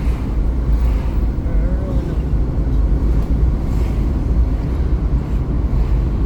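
Steady rumble of a moving vehicle, engine and road noise with wind on the microphone.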